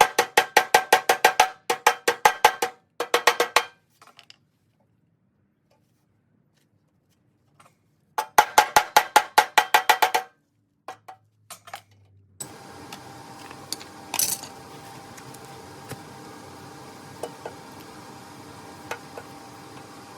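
Bursts of rapid, evenly spaced metal-on-metal strikes that ring: a long burst, a short one, a pause, then another burst. About twelve seconds in, a steady, quieter mechanical hum starts and runs on with a few faint clicks.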